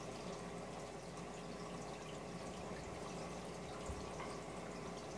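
Aquarium aeration bubbling, with air bubbles rising in streams and breaking and dripping at the water surface. A steady hum runs underneath.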